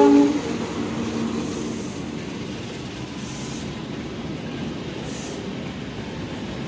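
Passenger coaches of a long-distance train rolling past on the through track, a steady rumble of steel wheels on rail. The end of the CC 206 diesel locomotive's horn blast cuts off just after the start.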